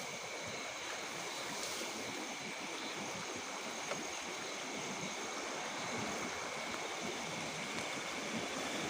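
Steady outdoor night ambience by a swamp: an even hiss with constant high insect trilling held on a few unchanging pitches.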